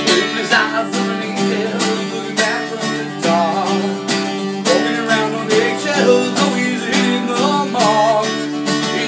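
Acoustic guitar strummed in a steady rhythm, with a man singing over it in several short phrases: a live acoustic song.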